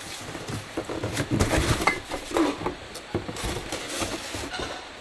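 Tableware and a drink bottle being handled on a table: an irregular string of light clinks, knocks and clatter that dies away shortly before the end.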